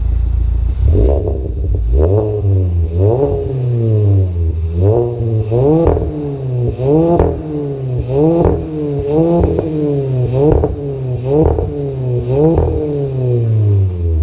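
2017 Kia Forte5's 2.0-litre naturally aspirated four-cylinder running through a new custom dual-exit exhaust. It idles for about a second, then is blipped about a dozen times in a row, one rev each second, with the pitch rising and falling. There is a little backfiring on the overrun.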